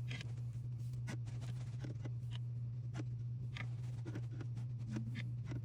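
Light clicks and taps of miniature perfume bottles being handled and set down in a small tool box, about one every second or so, over a steady low hum.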